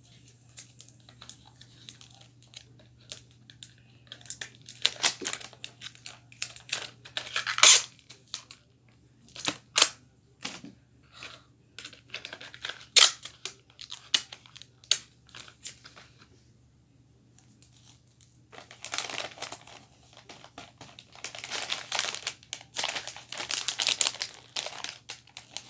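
Paper and card packaging being handled: scattered sharp snaps, clicks and small tears, then a short pause, then wrapping paper crinkling and rustling steadily for the last several seconds.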